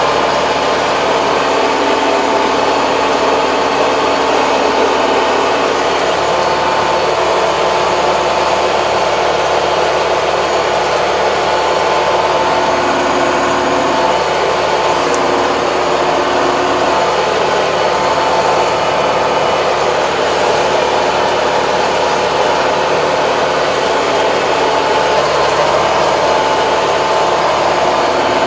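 Farm tractor's diesel engine running steadily, heard from inside the cab, with a steady high whine over the engine noise.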